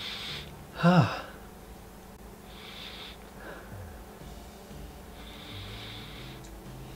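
A man sniffing an essential oil rubbed on his wrist: three slow inhalations through the nose, with a short vocal 'hm' dropping in pitch about a second in.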